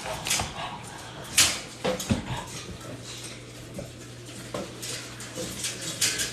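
French bulldog mother and newborn puppies: short faint whimpers and squeaks among scattered clicks and knocks, over a low steady hum.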